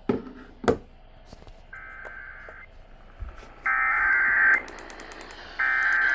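Emergency Alert System SAME header played over the radio: three bursts of buzzing digital data tones, each just under a second long and about a second apart, the first one quieter. They carry the coded alert, a severe thunderstorm warning, ahead of the attention tone. Two sharp clicks come just before the first burst.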